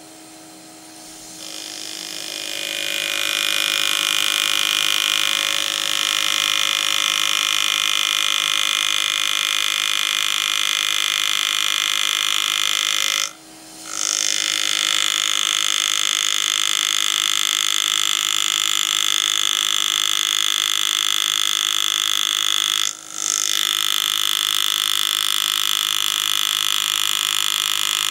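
Pneumatic engraving handpiece buzzing steadily as its graver cuts into a coin. It builds up over the first couple of seconds and stops briefly twice before starting again.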